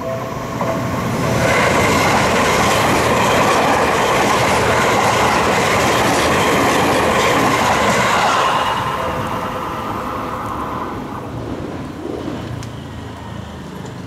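Seibu Ikebukuro Line electric train passing a level crossing close by: loud for about seven seconds, then fading as it runs away.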